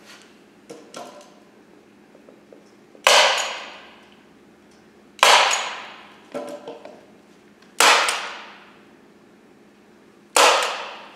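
Staple gun firing staples through fabric into a wooden armrest: four sharp snaps about two and a half seconds apart, each ringing out briefly, with softer handling clicks in between.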